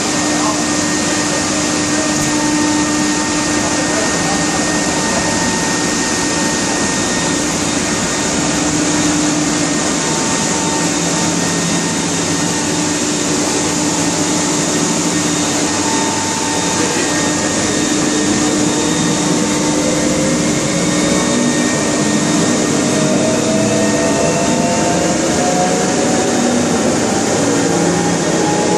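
Cable-haulage winch of a funicular running: the big steel cable drum and its open ring gear and pinion turn with a loud, steady machine din and a steady gear whine. In the second half a whine slowly rises in pitch.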